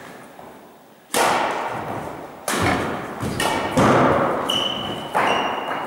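Badminton rally in a gym hall: rackets strike the shuttlecock four times, about once every second and a half, each hit sharp and echoing. There is a brief high squeak near the end.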